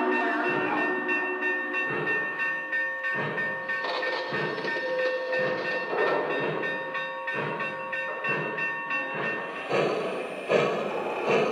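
Lionel O-scale model steam train running on three-rail track: the Union Pacific Challenger's onboard sound system plays steam chuffs, about one a second, over the rolling of the freight cars' wheels.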